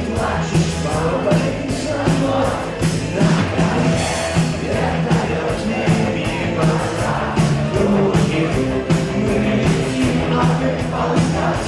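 Live rock band playing loud amplified music with a steady drumbeat and a singing voice.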